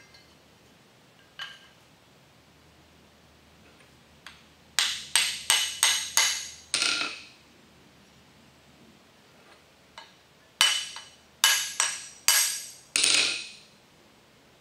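Hand hammer striking steel on an anvil. It lands about six quick ringing blows, pauses, then lands about five more.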